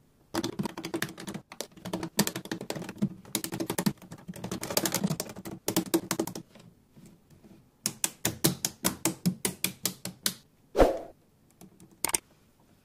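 Lego Technic plastic parts clicking and rattling as they are handled and snapped together. A dense run of clicks lasts about six seconds; after a pause comes an even series of about five clicks a second, then a brief swish and a single click near the end.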